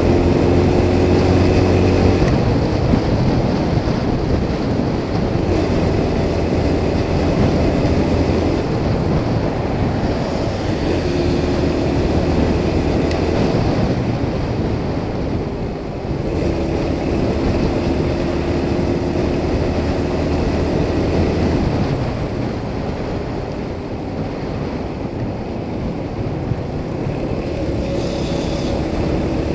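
Wind rushing over the microphone of a motorcycle riding at highway speed, with the engine's steady hum coming through in stretches.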